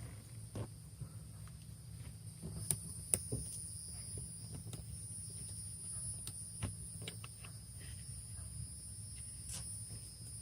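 Scattered light clicks and taps from hands working at a car's fuse panel, over a steady high-pitched whine and a low hum.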